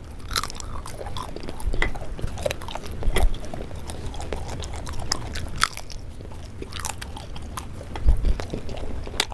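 Close-miked biting and chewing of crisp jalebi, with irregular crunches and crackles throughout. There are a couple of dull low thumps, the loudest about eight seconds in.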